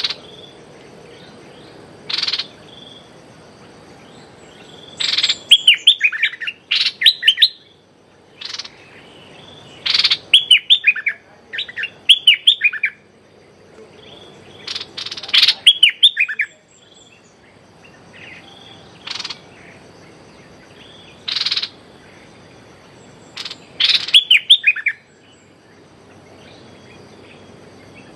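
Bulbul calling from a decoy cage. Its short sharp notes alternate with quick runs of four to six falling chirps, in bursts every few seconds; the title calls this a 'rik' call aimed at a captive bird.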